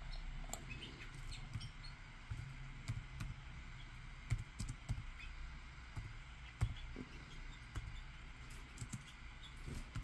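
Light, irregular key taps on an Acer laptop's keyboard during typing.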